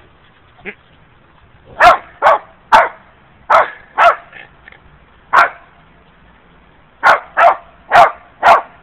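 A dog barking repeatedly, about ten barks in all: a run of six, a pause of about a second and a half, then four more.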